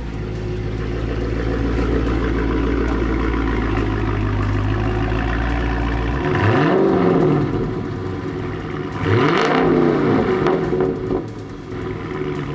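2019 Dodge Charger Scat Pack's 392 HEMI V8, fitted with a Corsa exhaust and a freshly installed JLT cold air intake, idling steadily. About six seconds in and again about nine seconds in it is revved, each rev rising and then falling back to idle.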